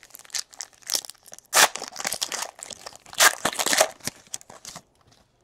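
Foil wrapper of a Panini Elite Extra Edition baseball card pack being torn open and crinkled by hand, a run of crackling rips with the loudest tears about a second and a half in and again around three to four seconds, stopping shortly before the end.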